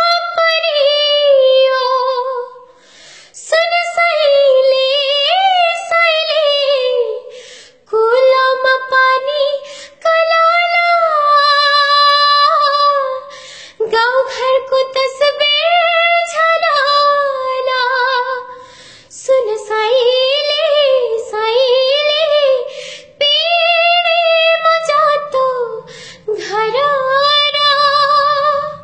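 A woman singing a Nepali song solo and unaccompanied in a high voice, in long drawn-out phrases with short pauses between them.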